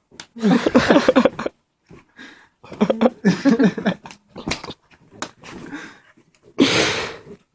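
Young pit bull growling in bursts while playing tug with a rope, with a sharper noisy burst near the end.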